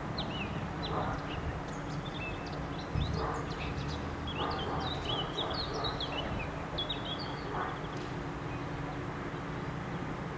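Small birds chirping busily over the steady low drone of a diesel locomotive's engine as it moves slowly at low power.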